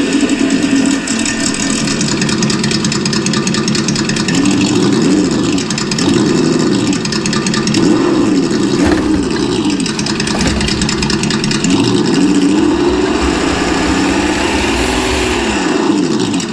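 Simulated engine sound from the ESS-One sound module's speaker in an RC truck, idling and revving up and down several times with the throttle.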